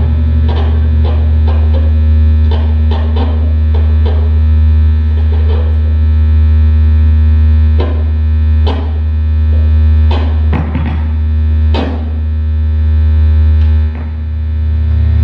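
Free-improvised noise music over a steady low WASP synthesizer drone with many held overtones. Irregular clicks and knocks from objects played on a prepared table cut across it, thickest in the second half.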